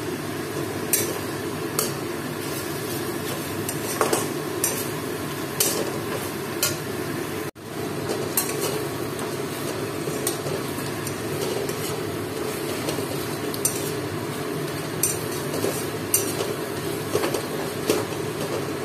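Sliced onions frying in oil in a metal kadai with a steady sizzle, nearly browned, while a flat metal spatula stirs them, scraping and clinking against the pan at irregular moments about once a second. The sound cuts out for an instant about halfway.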